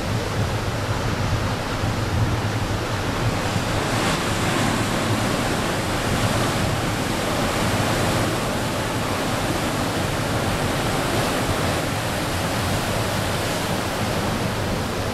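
Steady roar of heavy ocean surf, mixed with wind rumbling on the microphone.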